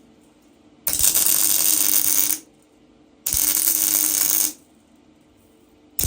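MIG welder laying short bursts of weld: a steady, loud crackling sizzle that starts and stops abruptly, twice, each burst lasting about a second and a half, with a third starting just at the end.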